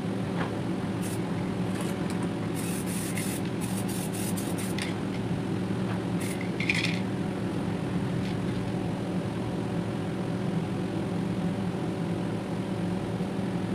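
Spray-booth extraction fan running with a steady hum. Over it come a few light clicks and rustles as a freshly lacquered plastic part is handled, most of them in the first half.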